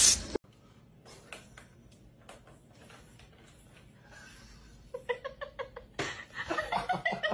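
A brief loud noise cuts off within the first half second. Then come faint taps and scuffles. From about five seconds in, a person chuckles in short repeated bursts.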